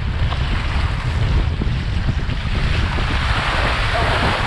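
Wind buffeting the microphone over rushing, splashing water, the water hiss growing louder in the second half.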